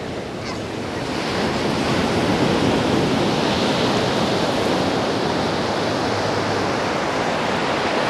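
Ocean waves washing on the beach: a steady rushing noise that grows louder about a second and a half in.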